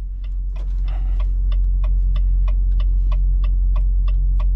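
Truck's diesel engine idling with a steady low hum, with a light, regular ticking about four times a second over it.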